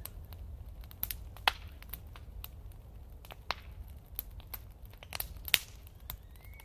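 Sparse, irregular sharp clicks and crackles over a faint low hum, with a short faint rising tone near the end.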